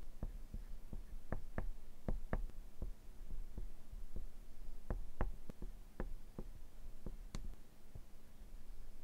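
Oil pastel sticks dabbing and scratching on paper in short strokes: a run of irregular light taps, two or three a second, over a steady low hum.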